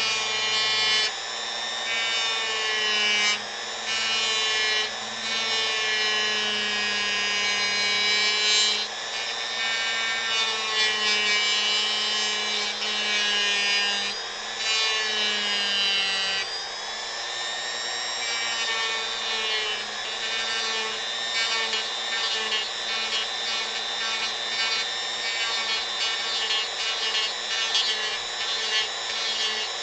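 Dremel rotary tool running at high speed, its bit grinding into wood. The whine sags in pitch and recovers several times as the bit bites in and eases off, over a steady rasp of the bit on the wood.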